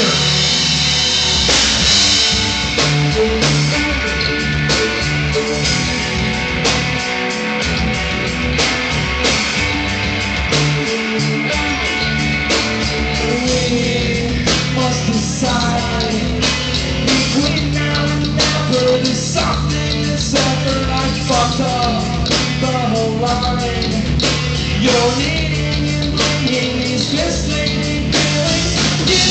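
Live rock band playing: electric guitars, bass and drum kit with a steady beat.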